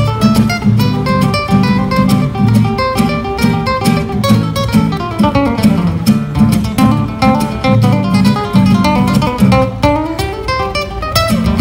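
Two acoustic guitars, one a nylon-string classical guitar, playing together in quick plucked runs of notes, with a rising run near the end.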